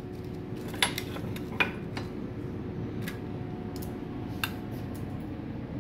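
A few light metallic clinks, about four spread over several seconds, as a stainless steel milk pitcher of steamed milk foam is handled and tipped to pour. A steady low hum of café equipment runs underneath.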